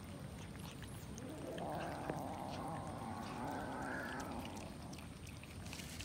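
Several cats chewing and smacking on raw chicken, with many small wet clicks of teeth and tongues. A raspy, noisy sound swells for about three seconds in the middle.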